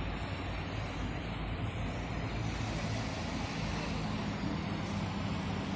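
Steady city traffic noise: cars running on the roads and bridge, with a low engine drone underneath.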